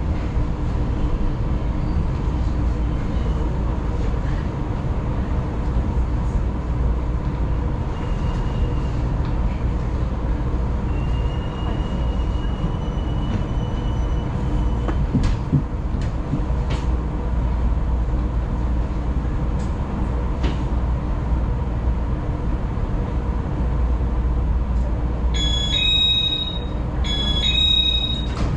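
Taiwan Railways local electric train running, heard from inside the carriage: a steady low rumble with a constant hum, and a faint rising motor whine partway through. A few sharp wheel clicks follow, and near the end come two short electronic chimes.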